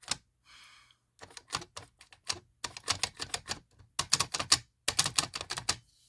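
Rapid, irregular plastic clicking and rattling from the white plastic pull handle of a Simplex fire alarm pull station being worked back and forth by hand. The clicks come in quick clusters of several a second, starting about a second in and stopping just before the end.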